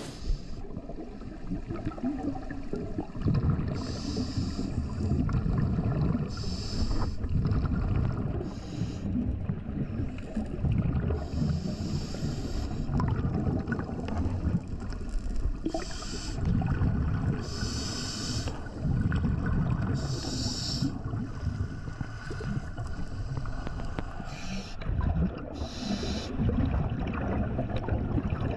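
Underwater recording of a diver breathing through a scuba regulator: a short hiss every few seconds over a low rumble of bubbles and water.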